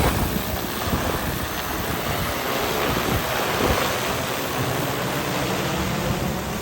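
A DJI Agras T30 crop-spraying drone's rotors running steadily, heard under a constant rush of wind noise on the microphone.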